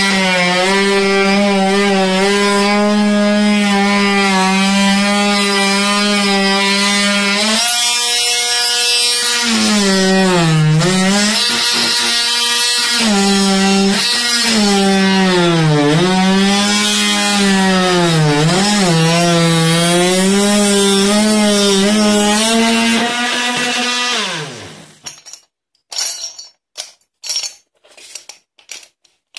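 Vityaz VMR-12 cordless oscillating multi-tool running with a steady pitched whine. It then dips in pitch again and again as the attachment is pressed into the work, bogging under load. Near the end it is switched off and winds down, followed by a few short clicks of handling.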